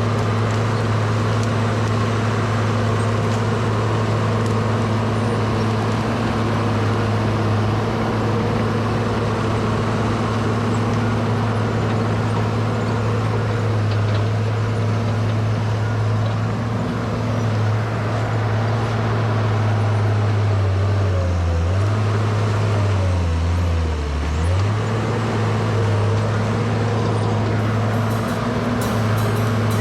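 Case 850K crawler bulldozer's diesel engine running steadily at working speed. About two-thirds of the way through, its pitch dips twice and recovers as the engine takes load.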